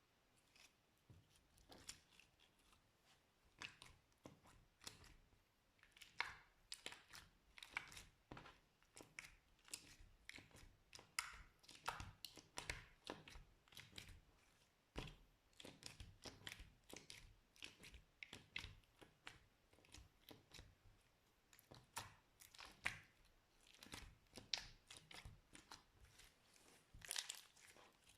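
Slime being worked by hand, giving an irregular run of small crackles and pops, several a second.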